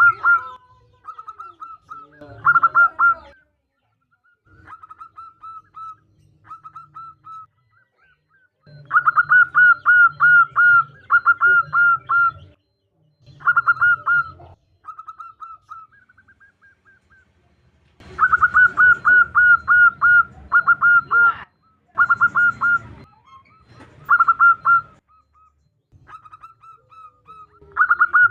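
Female zebra dove calling: runs of quick, repeated cooing notes in bursts of a few seconds, with softer, shorter phrases in between. The longest and loudest runs come about nine seconds in and again past the middle, each carrying a low hum beneath it.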